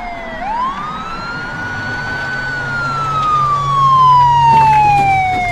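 Police car siren wailing: a quick rise in pitch about half a second in, then a long slow fall. A low steady hum runs underneath from about two seconds in until near the end.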